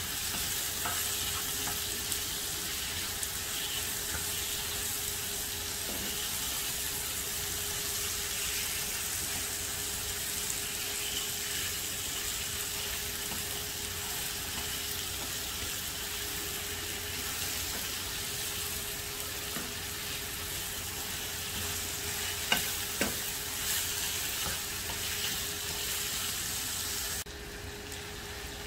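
Minced meat and diced zucchini sizzling in a nonstick frying pan while a spatula stirs it, scraping and knocking against the pan now and then. The sizzle steps down quieter about a second before the end.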